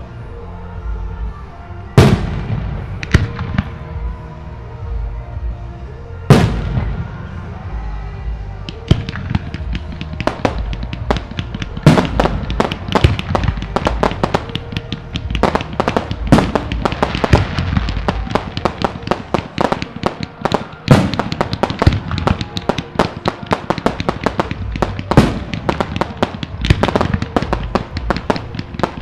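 Aerial fireworks going off: a few heavy booms of shells bursting in the first six seconds, then from about nine seconds in a dense, continuous crackle of many rapid pops from glittering shells.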